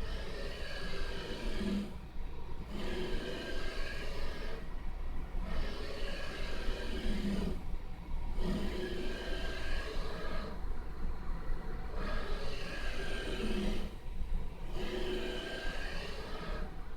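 CNC300 machine's Y-axis motor moving under joystick control in repeated runs of a few seconds with short pauses between, giving a steady whine of several pitches: a strange noise that the owner takes for a fault in the Y motor.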